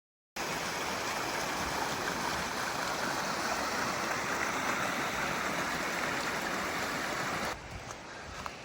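Creek water rushing steadily over rocks, starting abruptly a moment in; near the end it cuts to a quieter, lower rush.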